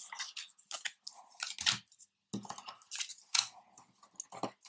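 Stiff playing cards being picked up and laid down on a wooden tabletop: a run of irregular light taps, slides and flicks.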